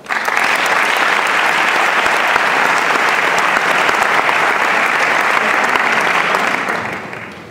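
Audience applauding in a hall, a dense steady clapping that starts suddenly and dies away near the end.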